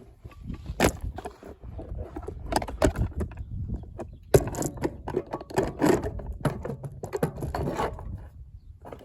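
RC car clattering and scraping over rough ground: irregular knocks and rattles, broken by two short lulls.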